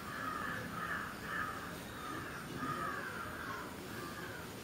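Crow cawing repeatedly, a steady run of harsh calls about two a second.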